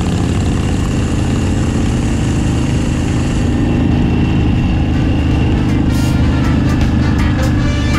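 Harley-Davidson Dyna Street Bob's V-twin engine running steadily at cruising speed, heard from a camera mounted on the bike, with wind and road noise; the wind hiss eases about halfway through.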